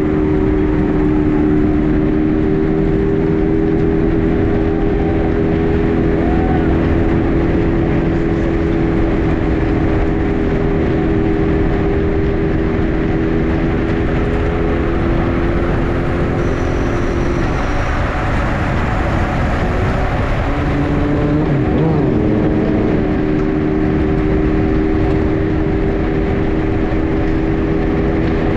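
Wind rushing over a bike-mounted camera's microphone at racing speed in a road-cycling pack, with a steady droning hum under it that drops out for a few seconds past the middle and then returns.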